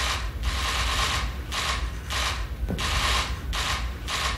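Press cameras' shutters firing in rapid bursts of clicks, a new volley about every half second, as a group poses for a photo.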